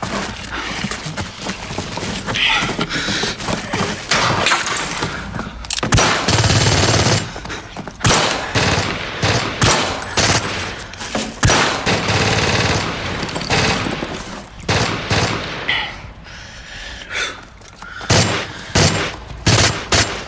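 Heavy battle gunfire: many shots in quick bursts, densest about six seconds in and again from about ten to thirteen seconds.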